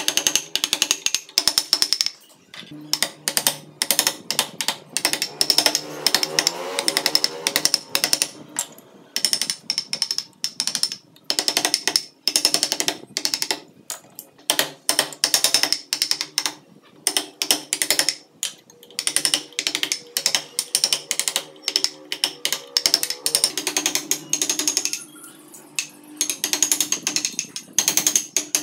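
Hand-driven wood carving chisel cutting into solid wood: a run of sharp, crisp cuts a few times a second as chips split off, with short pauses between runs.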